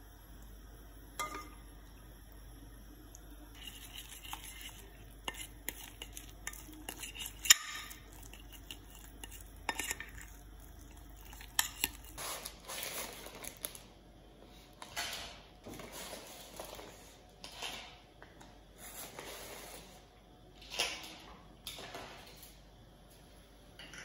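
A metal spoon and fork clinking against a glass dish and pan, then a fork stirring and scraping round the glass dish in repeated strokes, beating a thick egg mixture.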